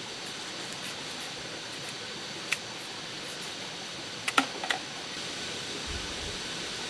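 Steady background hiss of outdoor ambience, with a few sharp clicks: one about two and a half seconds in, then a quick cluster of three or four a little past four seconds.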